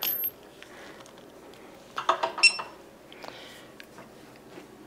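Handling clatter and knocks as the Inkbird sous vide circulator is plugged in. About two and a half seconds in comes one short electronic beep as the circulator powers up.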